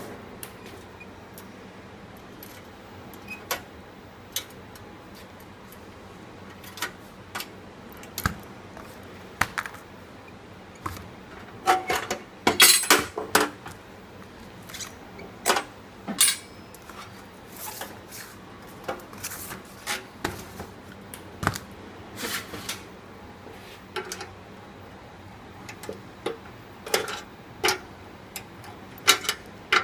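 Scattered metal clicks, taps and clanks from a gas stove's steel body and brass valve assembly being turned over and handled, with a dense run of rattling clanks around the middle.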